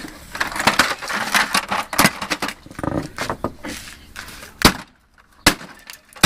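Plastic housing of a vacuum cleaner being smashed apart with a sledgehammer: several seconds of crunching and cracking, then three sharp separate blows in the second half.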